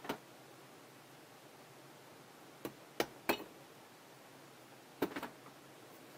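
A handful of sharp metal clicks and knocks as the cover plate of a Welch 1400 vacuum pump's primary stage is worked loose from the housing and lifted off: one at the start, a quick group of three about halfway, and two more near the end.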